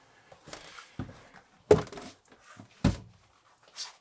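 A handful of separate knocks and thumps, four or five in all, from objects being handled and set down in a small room, the loudest two near the middle.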